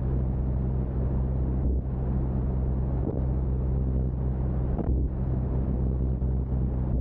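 Biplane's propeller engine running steadily in flight, a constant low drone, with wind rushing over the wing-mounted microphone.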